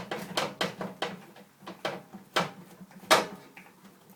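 Irregular sharp clicks and knocks of a screwdriver and hands working a screw out of a microwave's light bulb housing, the loudest knock about three seconds in.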